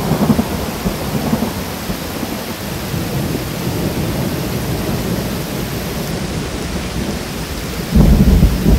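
Rainstorm: rain pouring steadily with rumbling thunder, and a loud, deep roll of thunder comes in near the end.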